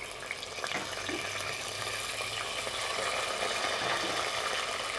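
Beans ladled into hot melted lard in a clay cazuela, frying with a steady sizzle that starts as they go in and grows a little louder over the first few seconds.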